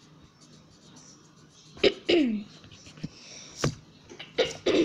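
A person's short wordless vocal sounds: two sharp outbursts, each falling in pitch, the first about two seconds in and the second near the end, with a sharp click between them.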